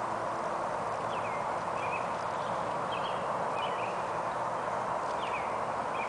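Faint hoofbeats of a ridden horse on arena sand, under a steady hiss. Birds chirp briefly about six times.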